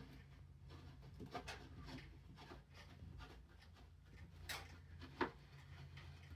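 Faint scraping and clicking of hand work as a mechanical doorbell chime is screwed to the wall. One sharper click comes about five seconds in, over a low steady hum.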